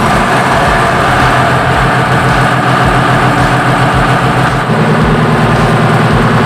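Ship's generator engine running, a loud, steady mechanical drone. Its low hum grows stronger about two-thirds of the way in.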